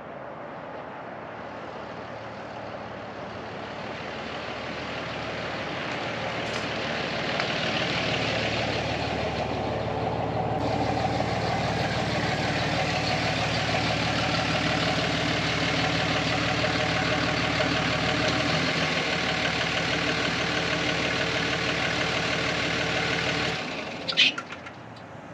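Vehicle engine and road noise while driving, a steady hum that grows louder over the first several seconds and then holds. A sharp click comes near the end, just before the sound drops away.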